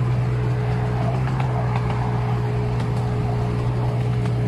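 Miniature railway train running along the track: a steady low rumble with a thin, constant whine.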